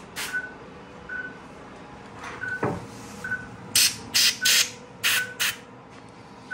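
Dental air syringe giving about six short puffs of compressed air into a dog's mouth during dental cleaning, in the second half. A short high electronic beep repeats about once a second throughout, and there is a single knock near the middle.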